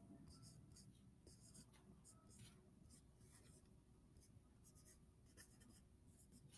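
Faint scratching of handwriting: short, high-pitched strokes coming in an irregular succession.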